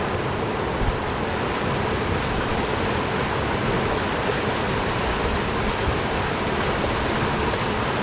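Mountain river rushing steadily over rocks in whitewater rapids.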